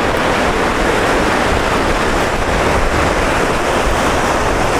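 Steady rush of whitewater rapids close by, the river running high.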